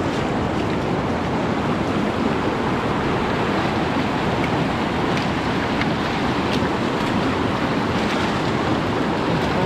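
Steady rush of a fast-flowing river running high.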